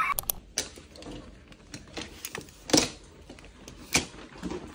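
Scattered light clicks and knocks from hard-shell luggage and small items being handled, with two sharper knocks, one just past the middle and one about a second later.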